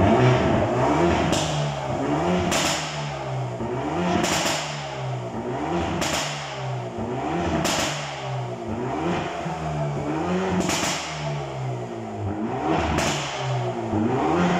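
Hyundai i30N's turbocharged 2.0-litre four-cylinder revved in repeated blips, rising and falling about every two seconds, with a sharp pop from the exhaust as many of the revs drop. The exhaust has its petrol particulate filter (GPF) deleted.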